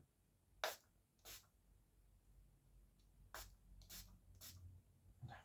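Near silence broken by five faint, short swishes about half a second to two seconds apart: hand-cleaning of a vinyl record.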